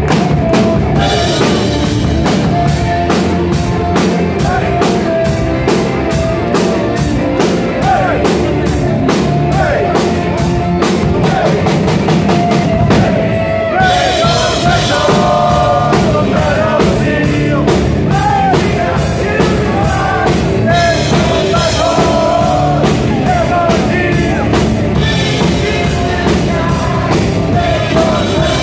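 Live power metal band playing loud: electric guitar, fast drums with rapid, even cymbal strikes, and a male singer. The drumming breaks off briefly a little before the middle, then picks up again.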